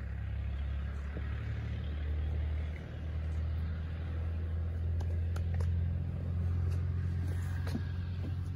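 An engine running steadily with a low rumble, with a few light clicks over it.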